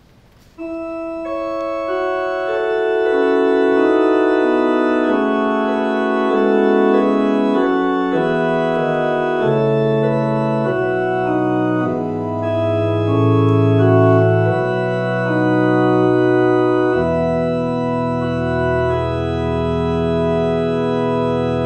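Two-manual church organ playing a slow interlude of held chords that change every second or so, with a deep pedal bass coming in about two-thirds of the way through.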